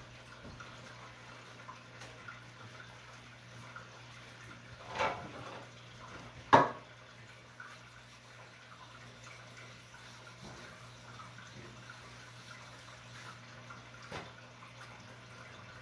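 Quiet room noise with a steady low hum, broken by a few brief handling sounds: a short rustle about five seconds in, a sharp knock a moment later (the loudest), and a small click near the end.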